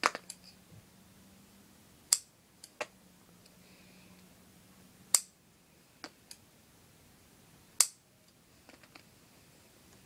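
Scissors snipping clay: short, sharp clicks at irregular intervals a second or two apart, with a faint steady hum underneath.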